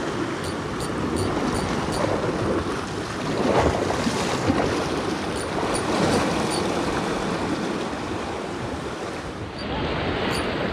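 Sea surf washing and breaking against a rocky shore, a steady rush of water that swells louder a couple of times, about four and six seconds in.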